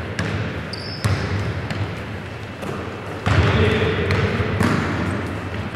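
A basketball bouncing on a hardwood gym floor, a few sharp bounces echoing in the large hall. There is a louder stretch of mixed noise from about halfway.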